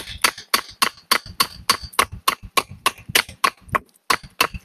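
A wooden baton striking the spine of a Joker BS9 Nordic bushcraft knife in quick, even knocks, about three or four a second, driving the blade across the grain of a branch. Cross-grain batoning is slow going, so the blows are hard and repeated.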